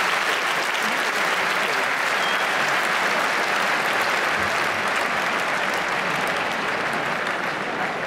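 Large arena audience applauding steadily.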